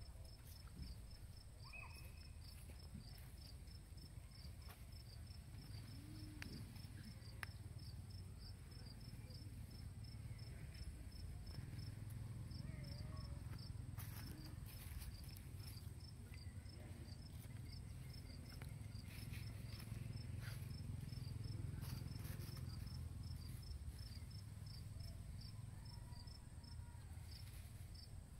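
Insects chirping steadily at a high pitch, about three short chirps a second, over a low steady rumble.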